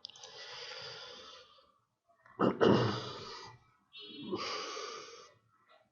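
A person breathing close to the microphone: three breaths, the middle one the loudest.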